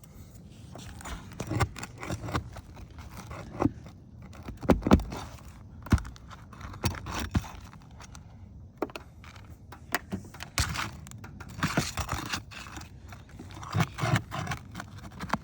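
Steel roofing flat bar scraping and knocking against asphalt shingles, in irregular strokes with a few sharper knocks, as it pries up a roofing nail.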